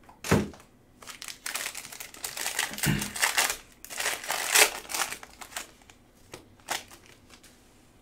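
Foil wrapper of a card pack being torn open and crinkled by hand, with a couple of dull knocks early on and a few light clicks near the end as the cards are handled.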